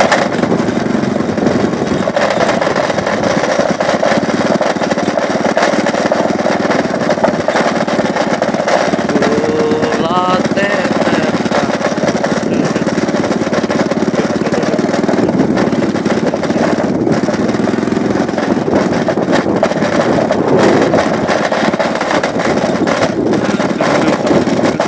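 Small motorcycle engine running steadily while riding over a dirt road.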